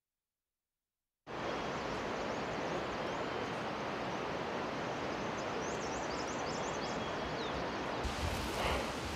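Silence for about the first second, then a steady, even rushing of outdoor ambience starts abruptly, with a few faint high chirps around the middle.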